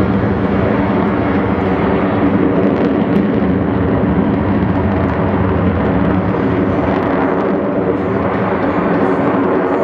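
Steady, loud jet engine noise from Blue Angels F/A-18 Hornet jets in flight, holding level without a sharp rise or fall.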